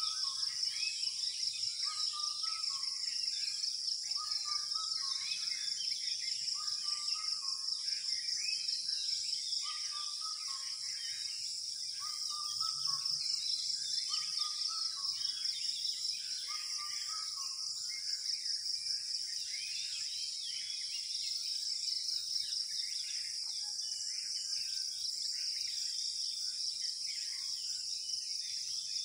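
Dawn chorus of many birds calling in trees over a steady, fast-pulsing high insect trill. A lower two-note bird call repeats about every two seconds through the first half.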